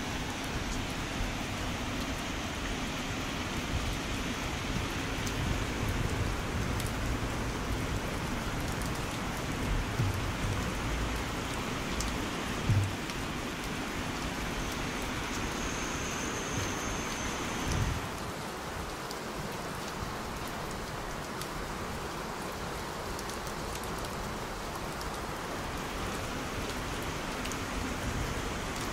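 Heavy rain falling steadily, with a few dull thumps. About two-thirds of the way through, the hiss turns duller as its higher part drops away.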